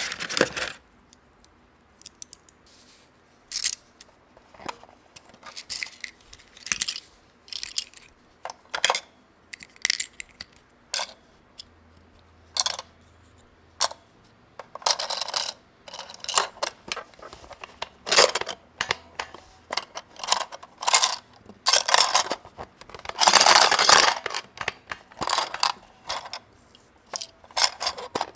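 Small plastic toy pieces being handled, with irregular clicks and taps and a few longer crinkling rustles of packaging.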